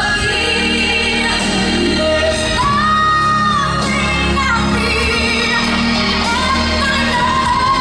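Music: a song with a sung vocal line holding long, wavering notes over a steady accompaniment.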